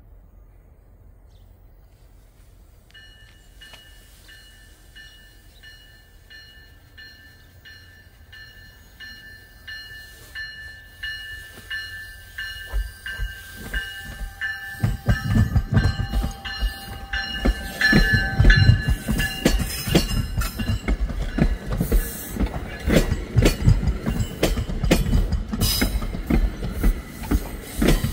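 EXO commuter train of bi-level coaches, cab car leading, approaching and passing close by. Its wheels rumble and clatter over the rail joints, growing loud from about halfway. A steady high ringing tone comes in a few seconds in.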